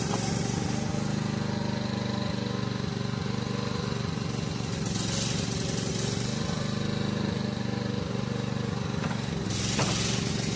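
Small gasoline engine running steadily at a constant speed, with a brief hiss about five seconds in and again near the end.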